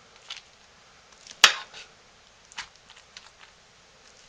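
A metal spoon scooping thick hot-process soap out of a slow-cooker crock and dropping it into a lined mold: a few scattered knocks and scrapes, the sharpest about a second and a half in.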